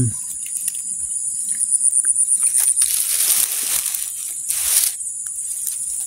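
Insects chirring steadily at a high pitch, pulsing for a while about a second in. Grass and leaves rustle twice as the vegetation over the ground nest is pushed aside, about three seconds in and again about a second and a half later.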